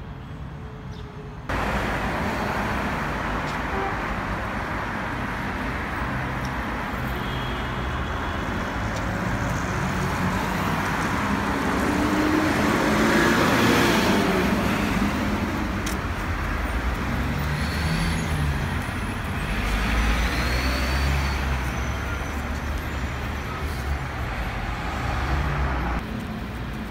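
City street traffic: cars, minibuses and trucks passing, starting abruptly about a second and a half in. It is loudest about halfway through as a vehicle passes close, with a deep engine rumble later on.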